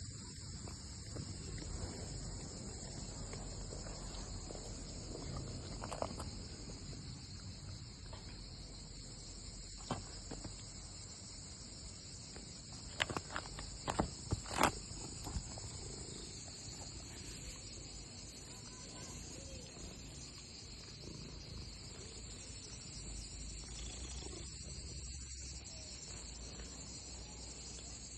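Steady high-pitched chirring background, with a handful of sharp clicks or taps about halfway through.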